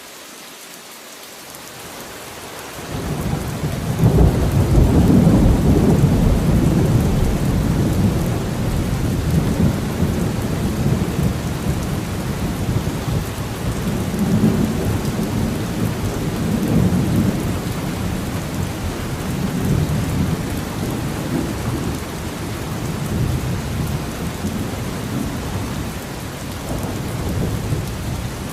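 Steady rain falling, with a long roll of thunder that builds about three seconds in, is loudest soon after, and keeps rumbling on in slow swells.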